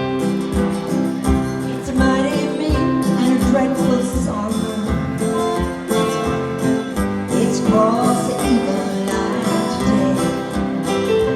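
Live acoustic country-folk band playing, with guitar over a steady low bass beat.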